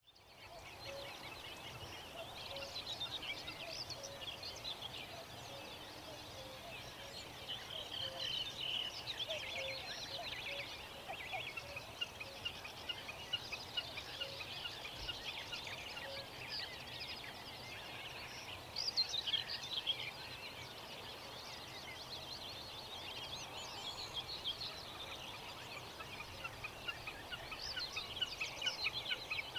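Many small birds singing at once: a dense chorus of high chirps and trills running throughout, with a lower short note repeating at irregular intervals through the first half, over a faint steady outdoor background.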